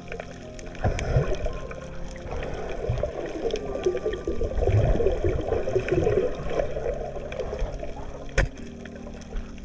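Underwater water noise through a submerged camera: a dense bubbling rush that swells to its loudest around the middle and then fades, with one sharp click about eight seconds in.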